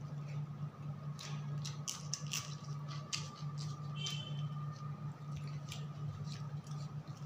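Close-up eating sounds: wet mouth smacks and clicks of chewing rice eaten by hand, with fingers squishing and gathering rice on a metal plate, over a steady low hum.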